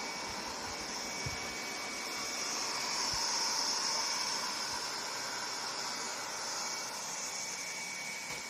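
Robot vacuum cleaner running: a steady whirring hum with a thin high whine, swelling slightly louder about three seconds in, with a couple of soft low knocks.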